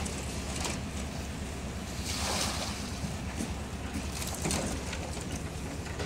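Wind buffeting the microphone: a steady low rumble, with louder gusts of hiss about two seconds in and again about four and a half seconds in.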